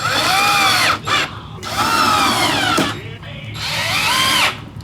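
Electric drill running in three short bursts during furniture assembly, its motor whine rising then falling in pitch each time as it speeds up and slows down.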